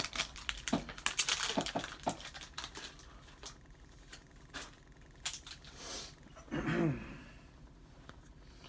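Foil card-pack wrapper crinkling and trading cards being handled: a run of quick small clicks and rustles for the first few seconds, then quieter handling. A brief low hum of a voice comes near the end.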